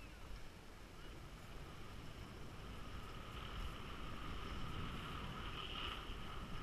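Skis hissing over groomed snow with wind rushing over the microphone, slowly getting louder as the skier picks up speed.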